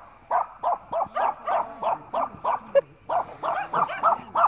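Dog barking in a rapid, unbroken string of short, high-pitched barks, about four a second.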